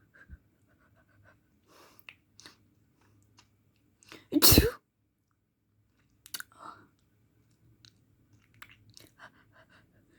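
A person's single loud, uncovered sneeze about halfway through, with a few faint clicks and short breaths before and after it.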